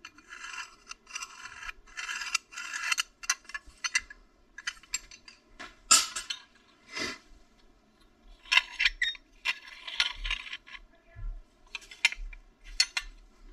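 Metal race medals clinking and scraping against one another as they are picked up and turned over by hand, a string of small irregular clicks with two sharper clinks about six and seven seconds in.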